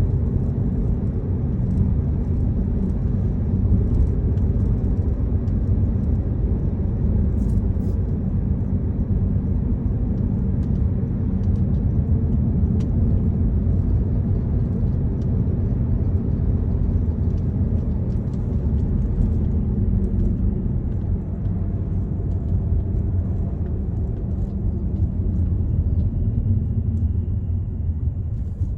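Steady low rumble of a car's road and engine noise heard from inside the moving car, with faint scattered ticks over it.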